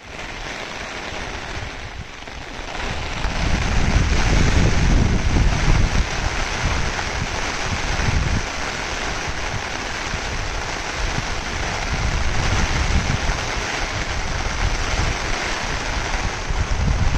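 Steady hiss of monsoon rain and water, with gusts of wind buffeting the microphone as low rumbles, strongest about three to six seconds in and again near the end.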